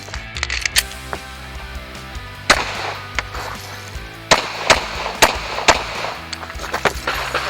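Handgun shots fired in an irregular string over a music track with a steady beat. The shots come about half a second to a second apart, with a pause of about two seconds near the start.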